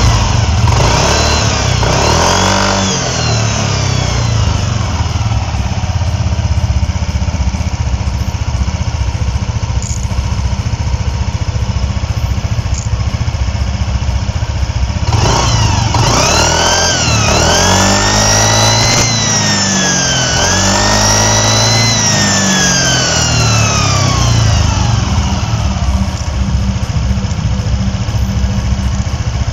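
Yamaha NMAX scooter's single-cylinder engine idling and being revved several times, with a turbo-like whistle from a bent metal plate set against the radiator cooling fan. The whistle rises and falls with the revs, strongest in three revs in the second half.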